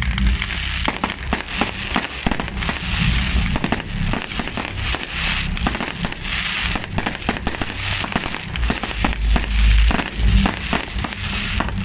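Fireworks display: a dense run of sharp cracks and bangs from shells launching and bursting overhead, with the heaviest booms about three quarters of the way through.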